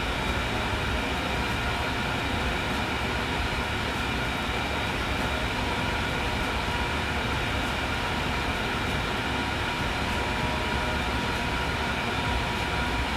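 Hot-air rework station and fume extractor fan blowing steadily, an even rushing noise with several thin steady whine tones, while the hot air heats a phone's charging port to desolder it.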